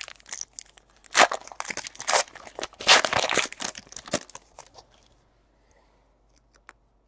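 A trading-card pack's plastic foil wrapper being torn open and crinkled: a run of sharp rips and rustles for about four and a half seconds, then a few faint clicks.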